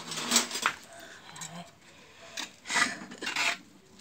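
Scraping and rustling of steamed sticky rice being scooped and turned by a gloved hand in a metal pot, in two bouts of a second or so each.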